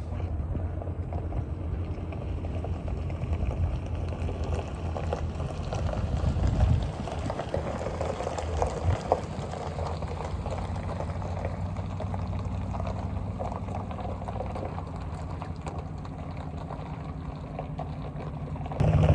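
Tractor engine idling steadily, with scattered light clatter, getting louder near the end.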